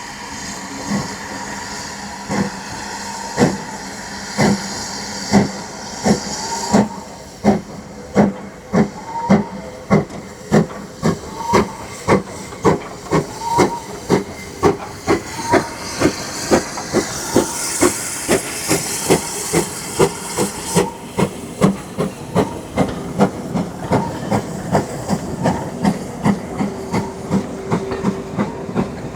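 Steam locomotive pulling away: its exhaust chuffs start about a second apart and gradually quicken as it gathers speed, with steam hissing at first and again about two thirds of the way through.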